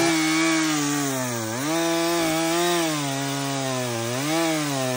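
Stihl two-stroke chainsaw cutting tree limbs under load, its engine pitch sagging and recovering several times as it bites into the wood.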